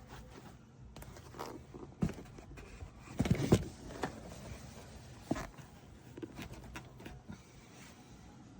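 Scattered light knocks and clicks, with a louder cluster of thuds about three seconds in.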